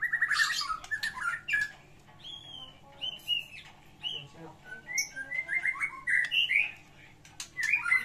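White-rumped shama singing its full fighting song: a loud, fast run of chattering notes, then clear whistled phrases that rise and fall, and more rapid runs of notes near the end.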